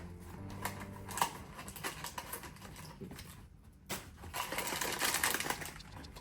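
Blind-box packaging being opened by hand: scattered taps and clicks, then from about four seconds in a denser stretch of rustling and crinkling.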